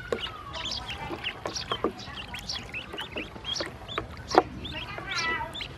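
Ducklings peeping: many short, high calls in quick succession, with one louder, fuller call near the end.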